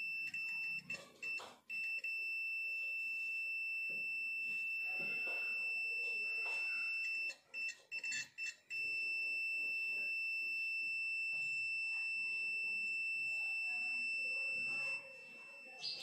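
Sanwa CD771 digital multimeter's continuity beeper sounding a steady high-pitched beep while its probes rest on a fridge compressor's common and run winding terminals, signalling continuity through the winding. The tone breaks off briefly a couple of times and stops about a second before the end.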